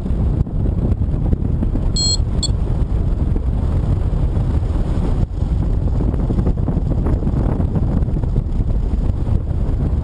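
Strong wind buffeting the microphone of a paraglider in flight, a loud steady low rush. About two seconds in come two short electronic beeps, typical of a paragliding variometer signalling lift.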